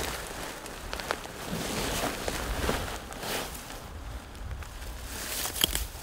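Scattered footsteps, rustles and small clicks on rocky ground, irregular and spaced out, over a low rumble of wind on the microphone.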